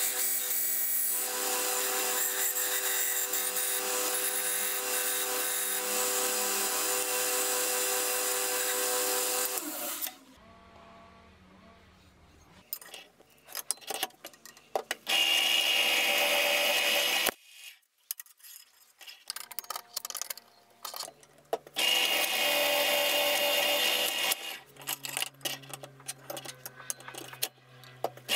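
A power tool runs steadily for about the first ten seconds. After a short quiet spell, a bench drill press drills through the saw-blade steel of a cleaver blank in two loud runs of a few seconds each with a high, steady squeal, then in shorter on-off bursts near the end.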